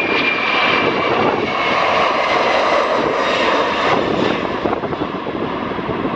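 Boeing 747-400 freighter's four jet engines at takeoff thrust as it lifts off and climbs: a loud, steady jet roar. A high whine slides slightly downward in the first second or so, and the roar eases a little after about four seconds.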